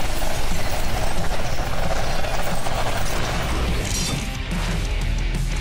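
Cartoon mechanical sound effects of a giant truck transforming into a robot dinosaur, layered over action music, with a short burst of hiss about four seconds in.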